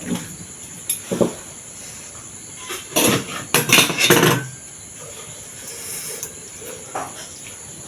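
Cutlery clinking and scraping against a bowl while eating thukpa and momo: a few short knocks, with a cluster of louder noises about three to four seconds in.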